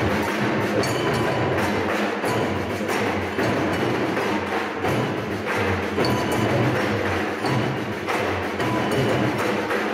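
Group percussion in rhythm: drumsticks and small hand percussion struck together with a steady beat, the sticks giving a clicking, wood-block-like sound over a pulsing bass.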